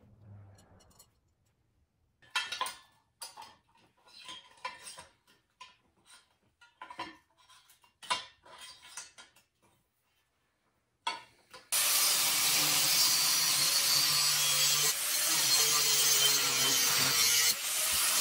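Scattered clicks, knocks and light metallic clinks from a steel sprocket, wheel and scooter frame being handled and fitted together. About twelve seconds in, an angle grinder starts suddenly and runs loudly on steel for about six seconds, then stops.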